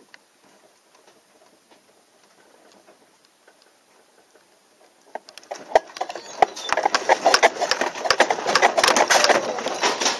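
Quiet room, then about five seconds in a sudden rapid rattling and clattering starts and quickly grows loud: household objects and the building shaking in an earthquake.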